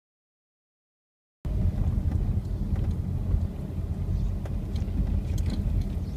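Dead silence for about a second and a half, then a car in motion heard from inside the cabin: a steady low engine and road rumble with a few faint clicks.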